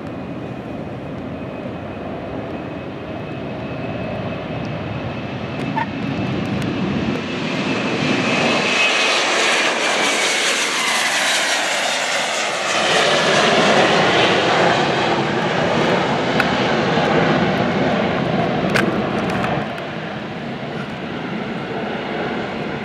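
Jet airliner taking off and passing by: the engine roar swells to its loudest about ten seconds in, with a whine that falls in pitch as it goes past, then eases off near the end.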